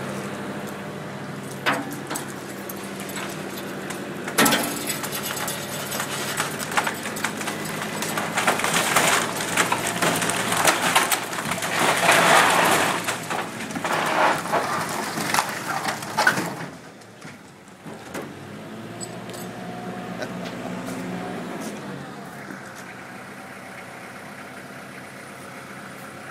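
Tractor engine running, with a long stretch of loud cracking and crashing from about four seconds in to about sixteen seconds in: the wooden frame and shingled roof of a house being pulled down. The crashing stops suddenly, leaving the engine idling.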